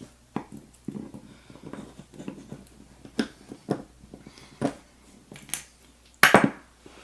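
Small metal clicks and taps of hand tools working the spring clip off the back of a Yale Superior lock cylinder, with a louder metallic scrape and clatter about six seconds in.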